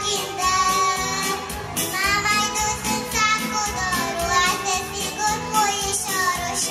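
A young girl singing solo into a handheld microphone, her voice carrying a held, wavering melody over instrumental accompaniment with a steady beat.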